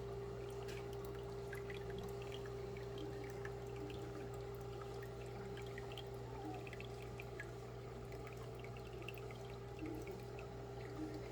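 Marine reef aquarium water trickling and dripping, over a steady hum from its running pumps.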